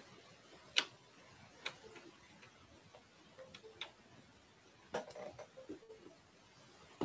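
Scattered sharp clicks and light taps at an irregular pace, about eight in all. The sharpest comes about a second in and a small cluster comes around five seconds in: the sound of desk equipment being handled, such as a pen tablet and its cable being set up.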